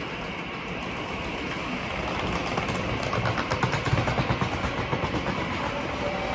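Meitetsu electric express train pulling out of an underground station, its running noise building as it gathers speed toward the listener. From about two seconds in there is a rapid run of clacks from the wheels, loudest around the middle.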